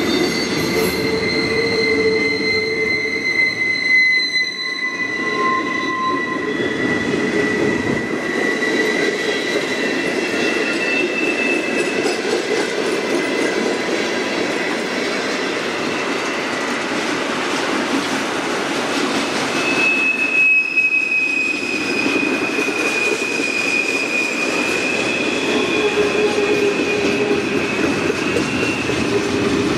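Norfolk Southern freight cars rolling past: a steady rumble of wheels on rail, with several long, high-pitched wheel squeals that drift slowly in pitch. A new, slightly higher squeal comes in about two-thirds of the way through.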